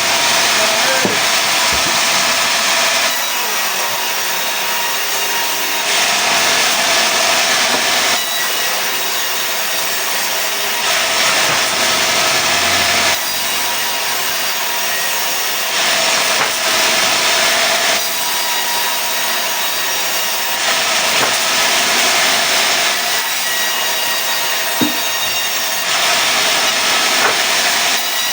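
Sawmill saw cutting pine into planks, running steadily and growing louder for two or three seconds about every five seconds.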